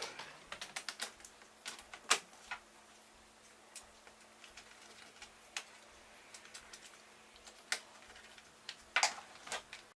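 Scattered light clicks and taps of a laptop being handled, the loudest about two seconds in and near the end, over a faint steady hum that rises in pitch at the start and then holds.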